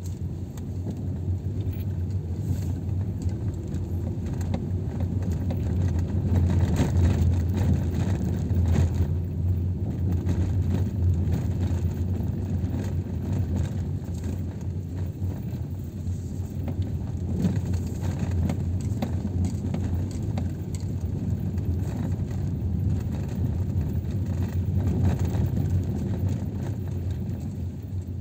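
Car cabin sound while driving slowly: a steady low rumble of engine and tyres, with small ticks and rattles. It grows louder for a few seconds a little after the start.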